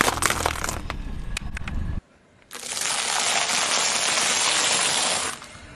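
Walnut shells cracking under a car tyre, a run of sharp cracks and snaps. After a short gap, popcorn is crushed under the tyre: a dense, even crunching for about three seconds that starts and stops abruptly.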